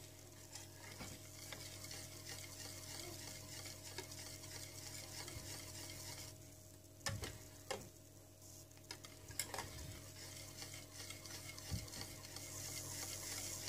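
Wire whisk stirring a hot, starch-thickened milk, Oreo and chocolate mixture in a stainless steel saucepan: faint steady swishing with a few light clicks of the whisk against the pan.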